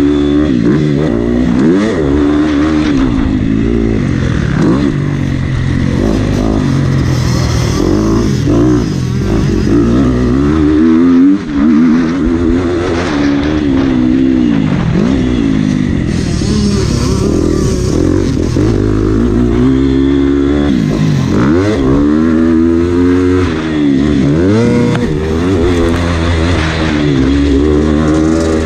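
Motocross bike engine at full race pace, revving up through the gears and falling off again over and over as the rider accelerates and rolls off the throttle, with a brief drop in level about eleven seconds in.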